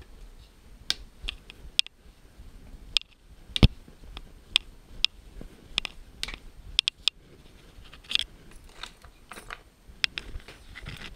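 Snow being tipped and scraped from a metal bowl into a large stainless steel pot: crunching snow with irregular sharp clinks and knocks of metal on metal.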